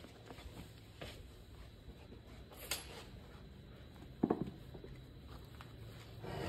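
Faint knocks and clinks from a Honda B-series transmission case being gripped and turned over by hand, with a short clatter about four seconds in.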